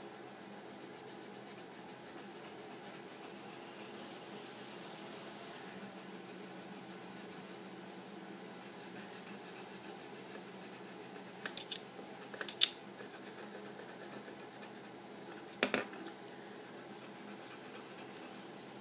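Pencil scratching and rubbing on paper in quick shading strokes, with a few short sharp clicks in the second half.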